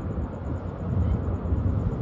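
Low, uneven rumble of the ferry Lobo Marinho's engines as it comes into harbour, mixed with wind buffeting the microphone.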